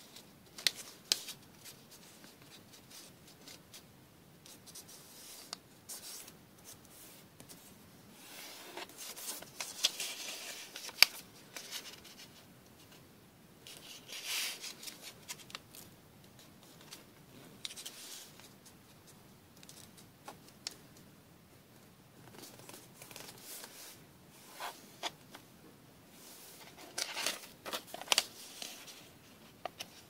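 Origami paper being folded and creased by hand on a tabletop: intermittent rustling and crinkling with sharp clicks as the folds are pressed flat. The rustling comes in short bouts, busiest around a third of the way in, at the halfway mark and near the end.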